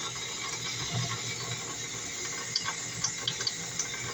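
Steady hiss of water running from a single-handle kitchen faucet, with a few light clicks in the second half as the handle and its screw are fitted.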